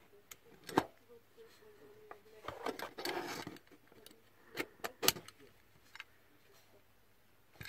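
Small plastic clicks and a brief scraping rustle as the battery cap of a digital luggage scale is handled and pushed onto the scale's body; the scrape comes about three seconds in, and a few sharp clicks follow around five seconds.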